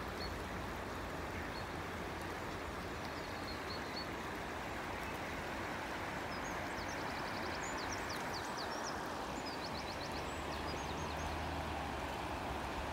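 Fast-flowing river water rushing in a steady, even wash, with small birds chirping high above it in a few short spells.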